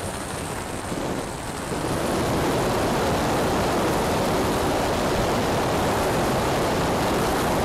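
Electric RC airplane in flight: a steady rushing noise of propeller and airflow. It is somewhat quieter for the first two seconds, then holds steady.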